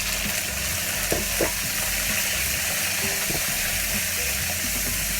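Prawns searing in hot oil in a wok: a loud, steady, dense sizzle, with a couple of light knocks about a second in.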